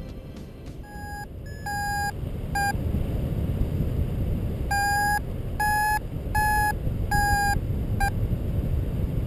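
Paragliding variometer beeping: short electronic tones at irregular intervals, the later ones slightly higher in pitch, the climb signal in a thermal. Wind rushes on the microphone underneath, louder from about three seconds in.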